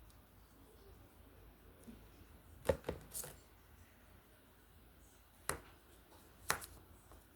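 A few sharp taps and clicks from drawing supplies being handled: a quick cluster about three seconds in, then single taps near five and a half and six and a half seconds, over faint room noise.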